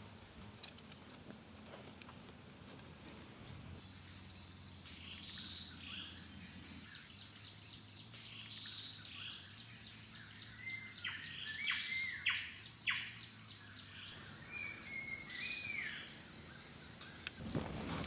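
Forest ambience: birds calling with short chirps and sweeping whistles, loudest a little past the middle. A steady high-pitched insect drone starts about four seconds in and stops shortly before the end.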